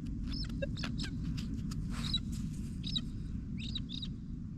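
Birds giving short, scattered chirps over a steady low rumble.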